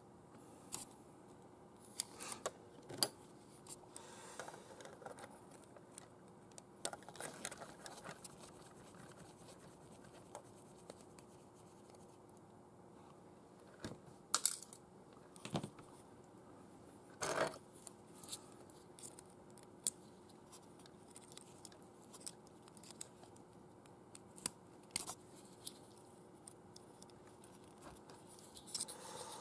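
Small plastic and metal model parts being handled and worked with a precision screwdriver: scattered light clicks, taps and scratches, with a few sharper knocks about halfway through.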